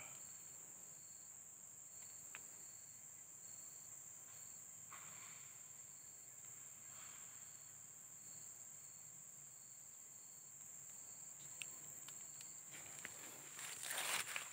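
Insects calling: a steady high-pitched drone, with a second insect chirping in short, evenly spaced pulses. Near the end comes a brief, louder rustling noise.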